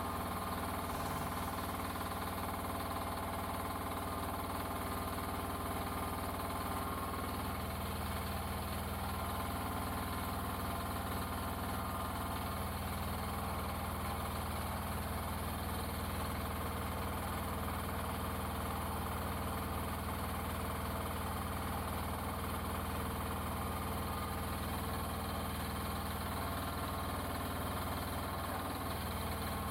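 NM-E08 mini excavator's engine running steadily while its boom and stick are worked; the engine note shifts slightly about seven seconds in and again near the end.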